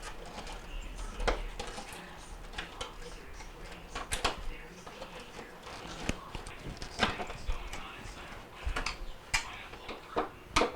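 Irregular sharp plastic clicks and knocks, about seven spread over the stretch, as a refrigerator's main control board is unclipped from its mounting tabs and its wire connectors are handled.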